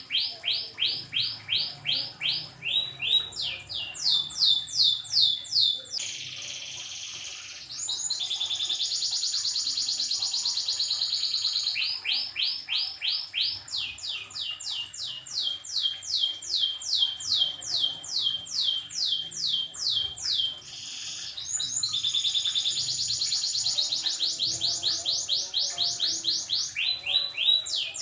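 Orange domestic canary singing continuously: runs of rapid, repeated down-slurred high notes, broken by long fast rolls about six to twelve seconds in and again around twenty-two seconds.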